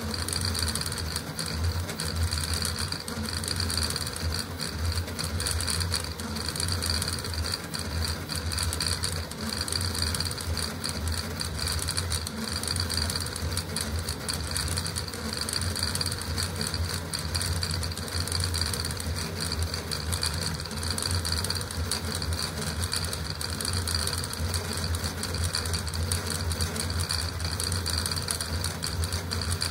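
Custom CoreXY 3D printer printing at very high speed (600 mm/s, 80,000 mm/s² acceleration). Its stepper motors and belt-driven toolhead make a steady, rapid mechanical chatter and buzz, with very fast stop-and-start moves as the head changes direction.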